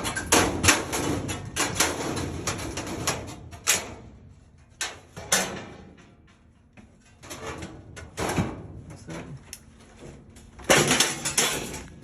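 Sheet metal being cut by hand with snips: irregular runs of sharp snips and metal crinkling, dense at first, sparser in the middle, with a loud cluster near the end.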